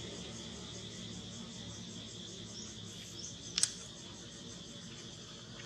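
Steady insect chirring in the background, with one sharp click a little past halfway.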